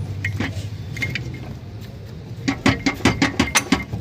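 A low hum fades over the first couple of seconds with a few metallic clicks, then about halfway in a ratchet spanner starts clicking quickly and evenly, about seven clicks a second, as bolts are worked during removal of the gearbox.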